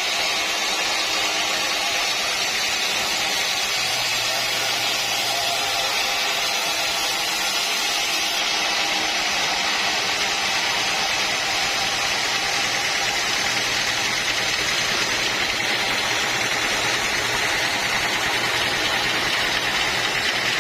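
Sawmill machinery running steadily, a constant mechanical hiss and drone with no single cut standing out.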